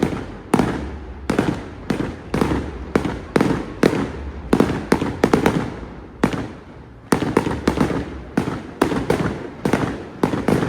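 Fireworks display: a rapid string of aerial bursts, about two to three sharp bangs a second, each trailing off in a rumbling echo, with a short lull a little past the middle.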